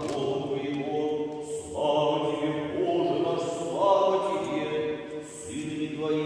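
Orthodox church choir singing unaccompanied liturgical chant during a wedding service, long-held chords in several voices, with a new phrase beginning about two seconds in and again about four seconds in.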